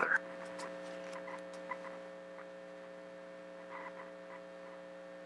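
Steady electrical hum made of several low tones, with a few faint, brief small sounds over it.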